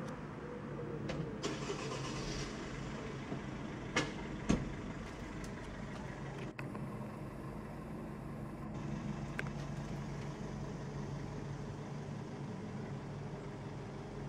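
Jet airliner passing low overhead, a steady engine noise with a low hum underneath. Two sharp clicks come about four seconds in.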